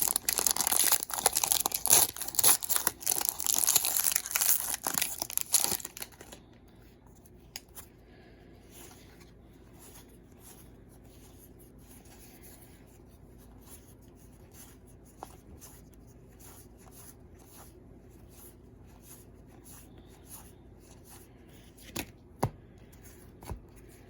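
A Panini Hometown Heroes baseball card pack's wrapper tearing open and crinkling for about six seconds, then faint soft clicks of cards being handled.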